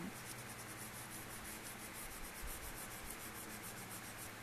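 A brown oil pastel rubbed quickly back and forth across paper while shading: a dry scratching, several even strokes a second.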